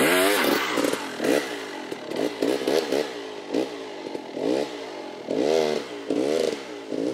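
KTM 300 XC-W two-stroke dirt bike engine revving in short, repeated bursts, about two a second, its pitch rising and falling with each. This is the throttle being blipped against a slipping clutch to hold a slow wheelie.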